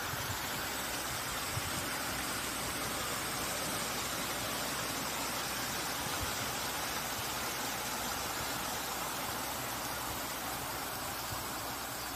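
Steady rushing splash of a park fountain's falling water, an even hiss with no change.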